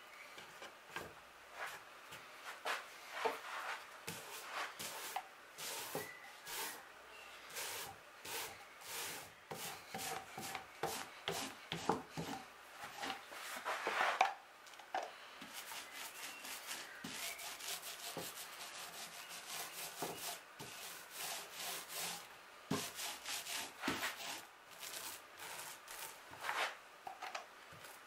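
Hands and a brush rubbing fiberglass cloth against a plywood panel as epoxy resin is brushed into the cloth, in irregular scratchy strokes.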